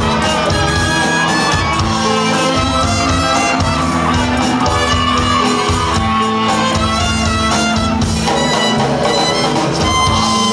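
Live band playing loudly: electric guitars, bass, drums and fiddle, with voices shouting over the music.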